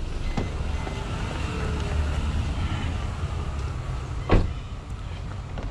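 Steady low outdoor rumble, with faint footsteps on cobblestones and one sharp knock about four seconds in.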